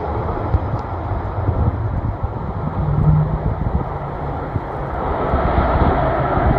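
Steady rushing noise of an ATR 72-600 turboprop airliner on arrival, growing a little louder near the end, with wind buffeting the microphone.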